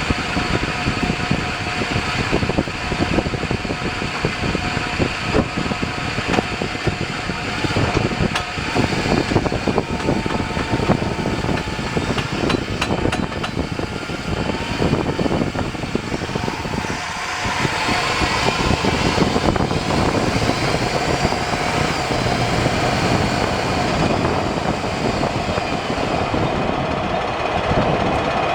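A 2001 Chevy Silverado driving at highway speed, with a constant rough, rapid rumble from the front end over engine and wind noise. The noise comes from a failing front drive shaft, the shaft between the transfer case and the front differential.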